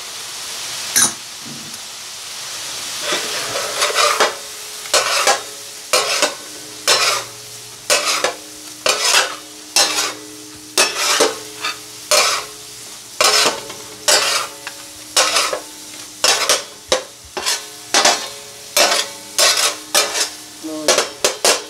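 Keema sizzling in oil on a hot metal tawa. After about three seconds a metal spatula starts striking and scraping the tawa, roughly twice a second, as it stirs and chops the mince, with the pan ringing faintly between strikes.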